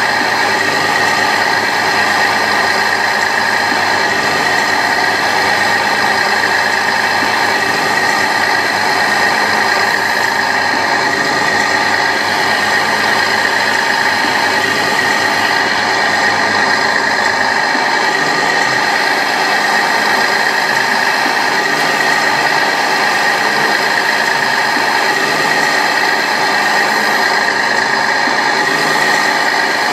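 Radio-controlled model excavator at work: a steady mechanical whine made of several constant tones, even in level throughout, with a low hum underneath that fades a little past halfway.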